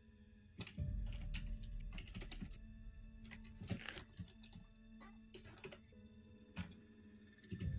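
Computer keyboard typing and clicking in irregular bursts, starting a little under a second in, over soft background music of sustained tones.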